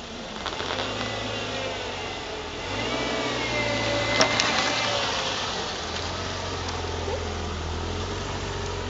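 Steady low engine hum, with one sharp click about four seconds in.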